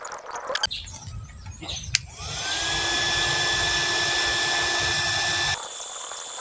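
A small electric blower motor switches on about two seconds in, its whine rising in pitch as it spins up and then holding steady over a rush of air, and cuts off suddenly near the end. A couple of sharp clicks come before it.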